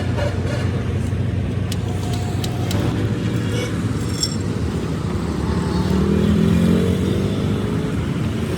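A motor vehicle engine running steadily, with a low rumble. About six to seven seconds in it rises a little in pitch and gets louder, and a few light clicks sound over it.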